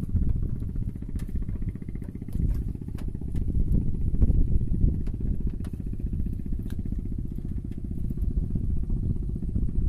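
A small engine running steadily with a low drone, rising and falling slightly in loudness, with a few faint clicks over it.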